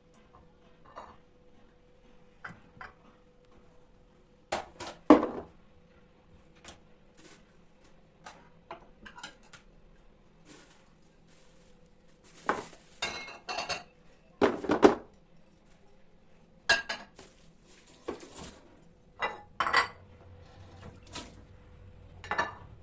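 Dishes and cutlery clinking and knocking as they are handled and set down during kitchen cleaning. The sound comes in irregular clusters of sharp clinks, loudest about five seconds in and again around twelve to fifteen seconds, over a faint steady hum.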